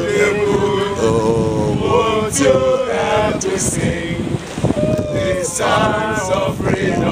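A group of men singing and chanting together outdoors, several voices in held notes, with wind buffeting the microphone.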